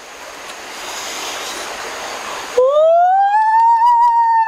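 A steady hiss builds for about two and a half seconds, then a man lets out one long, loud yell that rises in pitch and holds high.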